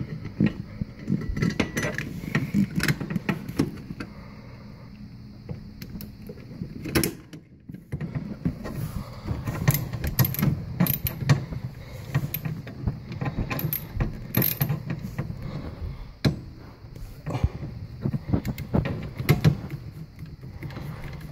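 Hand screwdriver turning a screw into the sheet-metal cover of a dishwasher's electrical junction box, with irregular clicks, taps and metal scraping as the cover and screw are handled.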